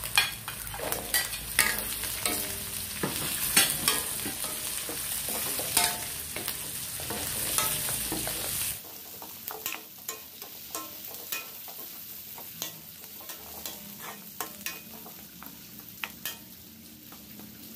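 Squash and okra sizzling in hot oil in an aluminium wok while a metal ladle-spatula stirs them, scraping and clicking against the pan many times. The sizzle drops noticeably about nine seconds in, leaving quieter frying and the clicks of the spatula.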